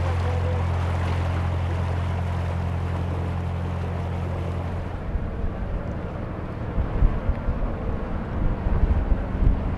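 Narrowboat's diesel engine running at a steady low hum for about five seconds, then gusty wind buffeting the microphone.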